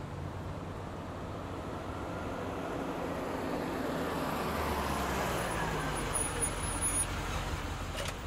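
Mercedes-Benz W123 saloon driving slowly along the street, engine and tyre noise growing gradually louder as it comes closer.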